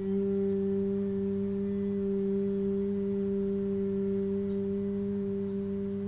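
A woman humming one long, steady low note through a single exhale: Bhramari, the humming bee breath of yoga.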